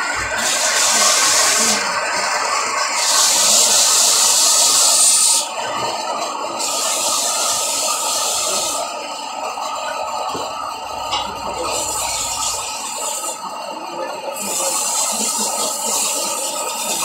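Heavy-duty motorized belt sander with a 1 HP motor, its abrasive belt grinding a workpiece held against it. A loud rasping hiss swells and drops in several passes of a second or two each as the piece is pressed onto the belt and eased off.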